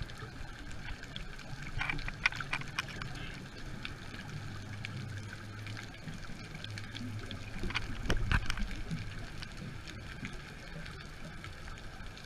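Underwater ambience picked up by a camera: a steady low hum, with bursts of clicking and bubbling about two seconds in and again around eight seconds in, the second the loudest.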